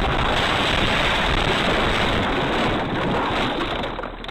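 Steady rushing wind and road noise from a moving car on a dashcam microphone, cutting off suddenly at the end.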